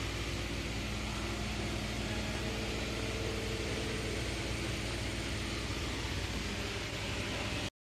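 Steady machine hum with an even hiss, like a fan or other machinery running, cutting off abruptly near the end.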